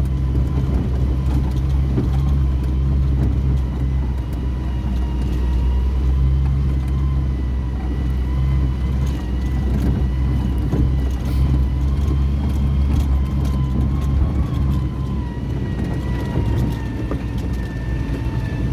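A large engine running steadily: a heavy low rumble with a thin, steady whine over it that drifts slightly in pitch.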